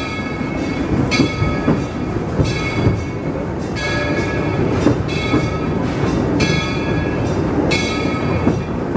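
Western River Railroad steam train running, heard from on board: a steady rumble from the wheels and carriages, with a short high ringing tone that comes back about every second and a half.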